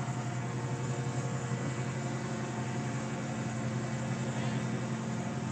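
Diesel engines of parked semi trucks idling, a steady low hum.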